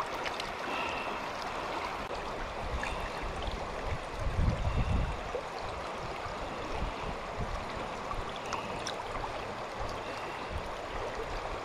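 River current rushing steadily over a shallow bed, with a brief low rumble about four seconds in.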